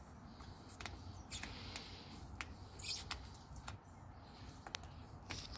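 Faint, irregular crackling and ticking of a vinyl sticker's adhesive letting go as it is peeled by hand off car paintwork.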